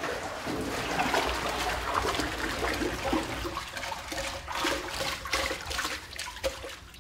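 Water swirling and sloshing in a large metal vat as it is stirred by hand with a long wooden paddle, the stirring of a biodynamic horn silica (preparation 501) spray into water.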